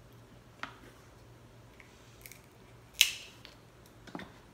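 King crab leg shell being cut and cracked open to get at the meat: a few separate sharp snaps, the loudest about three seconds in.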